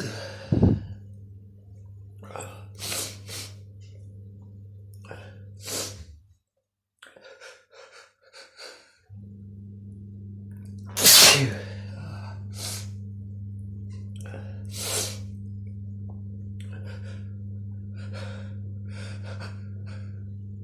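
A person sneezing repeatedly in a fit: several sharp sneezes, the loudest about eleven seconds in, with quieter short sounds between them. A steady low hum runs underneath and drops out for a few seconds in the middle.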